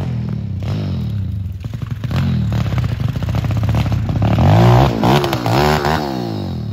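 A pit bike's small single-cylinder four-stroke engine revs hard under load as it climbs a steep dirt hill. It gets louder about two seconds in, then the revs rise and fall several times near the end. Scattered clattering runs through it.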